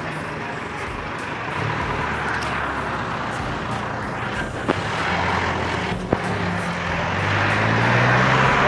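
Street traffic going by: a steady noisy rumble of road vehicles that grows louder over the last couple of seconds as a vehicle's engine comes close. Two short sharp clicks come partway through.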